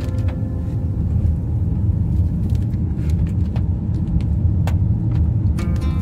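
Steady low rumble of a car's engine and tyres on a wet road, heard from inside the cabin, with a few faint clicks.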